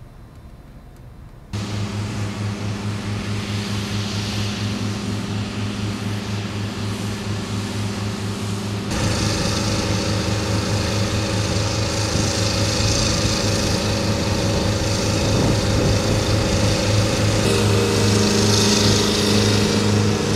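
Small engine of a turf-grooming machine running steadily as it drags a brush over artificial turf. It starts about a second and a half in and gets louder about nine seconds in.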